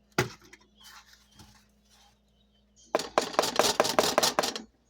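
Eggshell being cracked and broken open over a mixing bowl: a quick, dense run of sharp clicks and crackles, about ten a second, for a second and a half in the second half.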